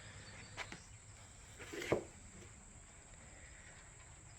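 Faint outdoor background with a steady high insect drone, and a few soft handling knocks, the loudest about two seconds in.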